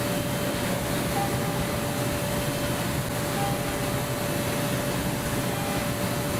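Five-axis CNC machining centre milling aluminium: a steady mechanical hiss with a constant high whine. A short, higher tone recurs about every two seconds.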